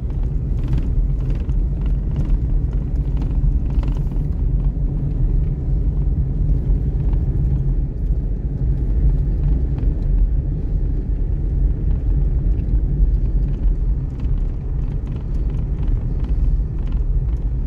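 Steady low rumble of a car driving on a snow-covered road, mostly tyre and road noise, heard from inside the cabin, with a few faint ticks in the first few seconds.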